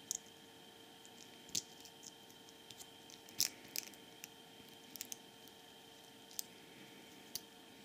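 Small precision screwdriver tip tapping and scraping on a tiny backlight inverter circuit board: a scatter of faint, irregular clicks, the loudest about three and a half seconds in, over a steady faint hum.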